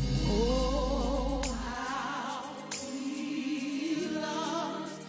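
Gospel choir singing a slow, held line with vibrato over sustained instrumental backing; the deep bass drops out about two seconds in.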